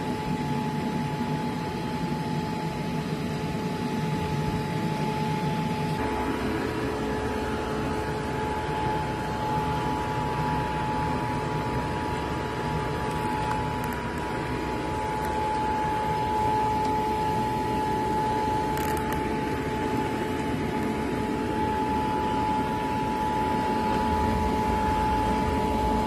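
Homemade vacuum cleaner, a cooling fan in an empty plastic bottle, running steadily with a motor whine and rushing air as its nozzle sucks over upholstery and carpet. The sound shifts abruptly about six seconds in.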